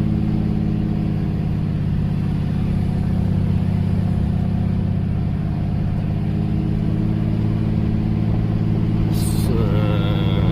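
Log truck's diesel engine running steadily while the truck drives, with a short hiss about nine seconds in.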